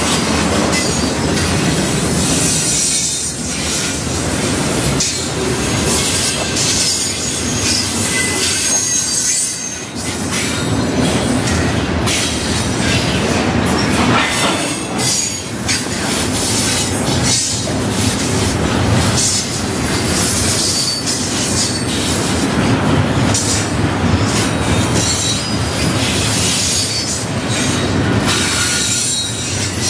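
A train's cars rolling past, a steady rumble with clicking over the rail joints and high-pitched wheel squeals coming and going.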